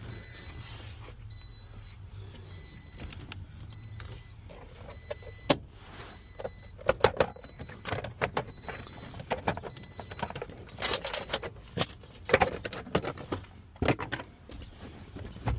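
A car's electronic warning chime beeps steadily, about one and a half high beeps a second, and stops about ten seconds in. From about five seconds in, sharp clicks and rattles of parts and keys being handled cover it.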